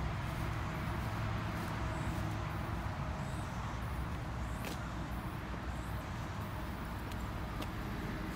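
Wind buffeting an iPhone's unshielded microphone, an uneven low rumble, over a steady outdoor hiss.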